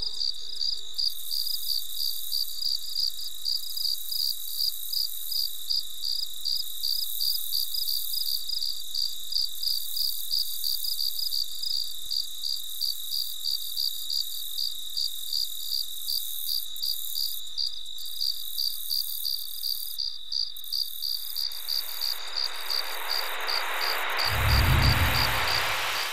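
Crickets chirping in a fast, even rhythm over a steady high trill. Near the end a rising whoosh swells into a low boom.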